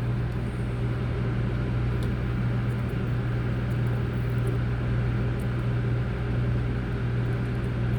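Steady low electrical hum with an even hiss from running soldering-bench equipment, with a few faint light ticks from small tools.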